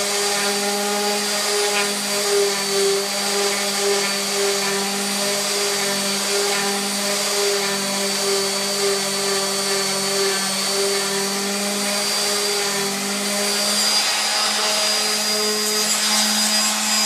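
Electric random orbital sander running steadily, its round pad working along the edge of an MDF panel to flatten the lips left by a saw cut. It makes a constant motor hum over the rasp of the abrasive.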